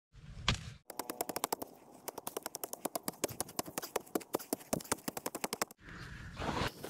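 A wooden digging stick jabbing into dry, stony soil: a fast run of sharp, scratchy knocks. Near the end, loose soil is scraped up by hand.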